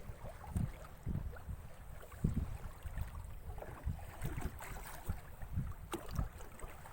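Irregular low rumbles of wind buffeting the microphone, with a single sharp click about six seconds in.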